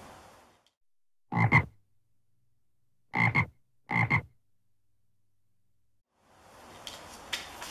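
Three short frog croaks: one about a second in, then two close together about three and four seconds in, with silence between them.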